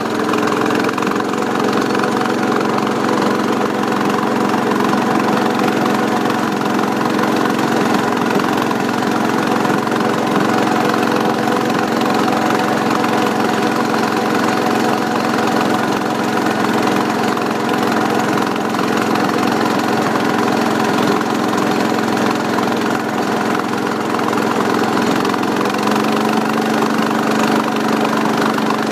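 John Deere 214 garden tractor's single-cylinder Kohler engine running steadily as it warms up, its speed rising slightly near the end.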